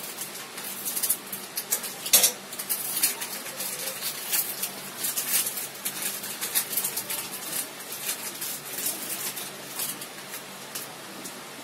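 Scissors snipping and hands crinkling and tearing open plastic snack wrappers, a run of irregular sharp crackles, loudest about two seconds in.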